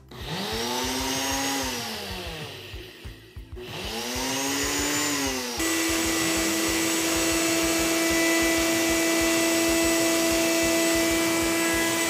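Nutri Ninja personal blender (1100-watt base) grinding rolled oats on its preset program: the motor speeds up and slows down twice. About halfway through, a Ninja countertop blender also starts grinding oats, and the sound settles into a steady hum.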